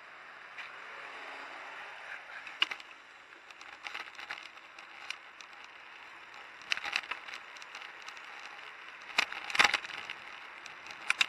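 Ride noise from a bike-mounted camera: a steady hiss of wind and street, with sharp clattering rattles and knocks as the bike jolts over bumps in the paving, loudest twice near the end.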